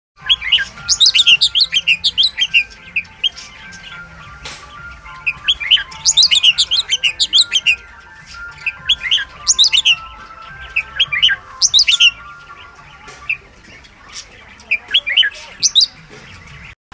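Black-collared starling calling: loud bouts of rapid, sharp chirps and whistles, each lasting a second or two, coming again every few seconds.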